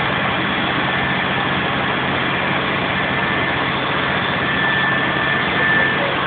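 Trains standing at a station platform, a steam locomotive beside an idling diesel railcar: a steady mechanical hum and hiss with a few faint steady tones over it.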